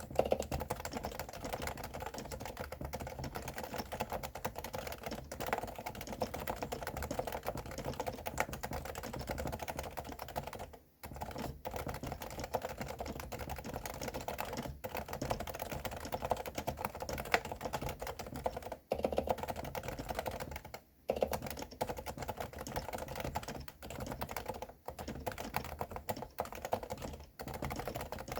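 Fast, continuous typing on a Realforce R2 Silenced keyboard with 45g Topre switches, the keystrokes soft and muffled, stopping briefly a few times.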